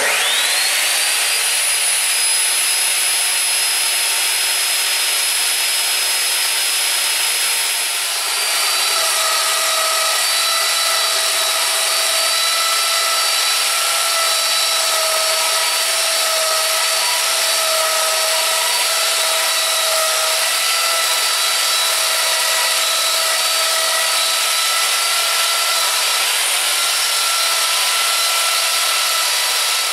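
Electric wood router running at full speed, its high whine climbing as the motor finishes spinning up in the first second, then steady. About eight seconds in, the whine dips slightly and the sound changes as the bit starts cutting into the ash bat blank on the lathe duplicator.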